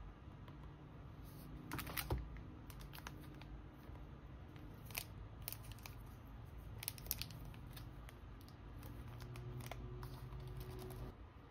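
Soft crinkling, rustling and light clicks of photocard sleeve packaging being handled: a cardboard sleeve box and a resealable plastic bag of matte sleeves. A low steady hum runs underneath and cuts off suddenly near the end.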